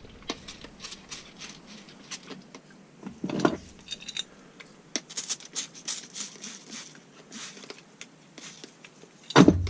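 Irregular small clicks and light rattling, like small hard objects being handled, with a brief voice sound about three and a half seconds in.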